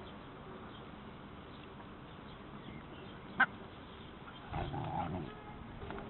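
Puppies play-fighting: a single short, sharp yelp a little past halfway, then about a second of louder puppy yapping and scuffling.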